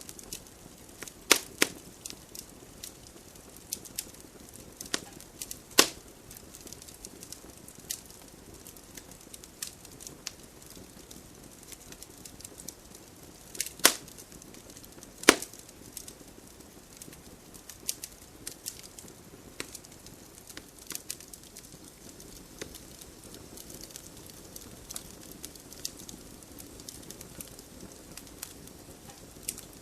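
Wood campfire crackling: irregular sharp pops and ticks over a soft hiss of burning, with a few louder snaps of splitting wood.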